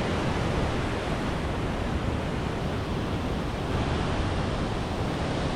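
Tuolumne River whitewater rushing steadily.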